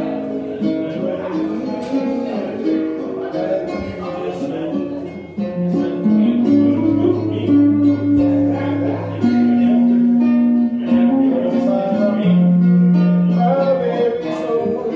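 Guitar and ukulele strummed and picked together in an informal jam, with some long held notes.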